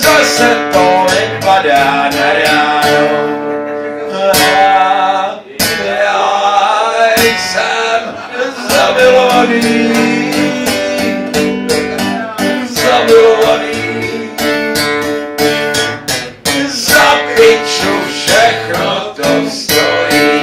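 A man singing a Czech folk waltz while strumming a steel-string acoustic guitar.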